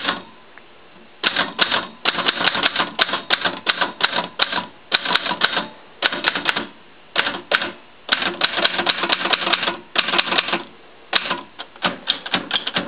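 Antique L.C. Smith & Corona No. 8 manual typewriter being typed on: rapid clacks of the typebars striking, in runs of a second or two broken by short pauses. The machine types fine despite being dusty.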